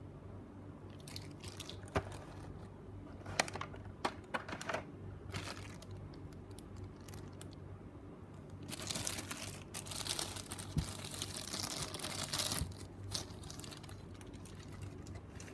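A thin clear plastic bag crinkling and rustling as a model airliner is handled and drawn out of it. First come a few scattered clicks and taps against the clear plastic packaging tray, then about four seconds of continuous crinkling.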